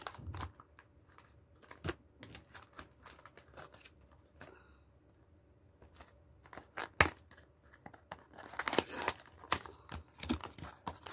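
Plastic wrapping and a cardboard mooncake box being handled and opened: scattered crinkling and rustling with light clicks, a sharp click about seven seconds in, and a busier stretch of crackling near the end.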